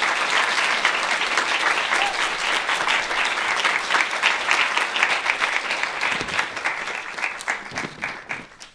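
Audience applauding: many hands clapping together, thinning out and fading away near the end.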